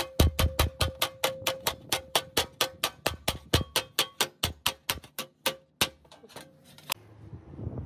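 Hammer rapidly tapping the edge of a sheet-metal repair panel against a hand-held steel dolly to fold it over. The blows come about five a second with a ringing metallic tone, grow sparser near the end and stop about seven seconds in.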